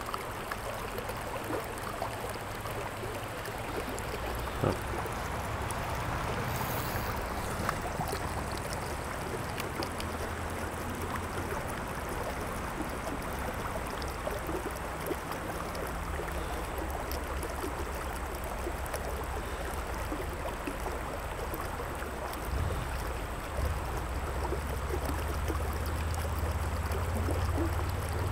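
Steady rush of creek water flowing over a shallow riffle, with a low rumble underneath that grows louder near the end and a single sharp click about five seconds in.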